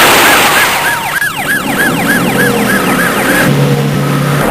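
Police siren sound effect in a fast yelp, rising and falling about three times a second, over loud car noise. A steady low drone joins near the end.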